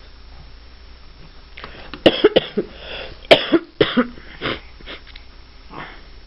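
A person coughing in a quick series of short, sharp coughs, about two seconds in and lasting some three seconds.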